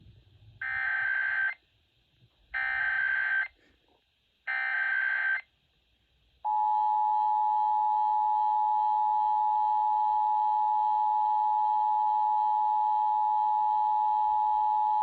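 Emergency Alert System signal for a Required Monthly Test: three bursts of SAME header data, each just under a second long, then the two-tone attention signal, a steady beep starting about six and a half seconds in and held for about eight and a half seconds.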